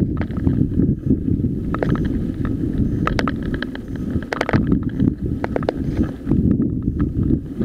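Wind buffeting the microphone of a mountain bike's ride camera as the bike rolls fast over a loose gravel track, with tyre crunch and the bike rattling and clicking over stones. A cluster of sharp clicks and rattles comes about three to four and a half seconds in.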